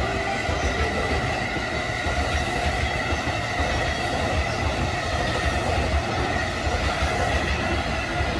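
JR East E531 series electric train running past on the rails: a steady rumble and clatter of steel wheels on track, with a steady high-pitched whine over it.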